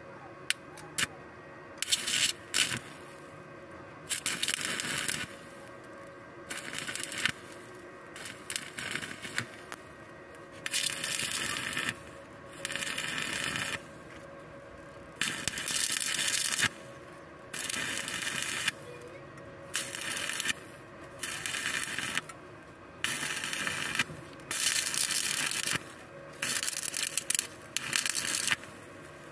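Stick welding: the electrode arc crackling in short bursts of about a second, more than a dozen times with brief pauses between, as spot or tack welds are laid on a steel plate. A faint steady hum sits underneath.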